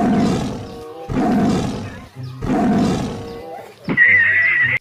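Three rough, drawn-out roars about a second apart, then a high wavering tone near the end.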